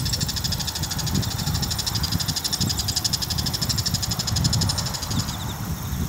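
Male bull-headed shrike giving its alarm call: a rapid, continuous chatter of short, high, dry notes, faltering briefly near the end.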